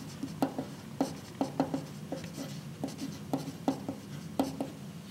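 Pencil writing on paper: short, irregular scratching strokes, about two or three a second, as letters are written by hand.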